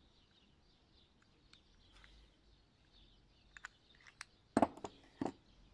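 Faint bird chirps in the background. In the second half come a few sharp clicks and knocks as the piston and connecting rod assembly is handled, the loudest a quick cluster about four and a half seconds in and one more near the end.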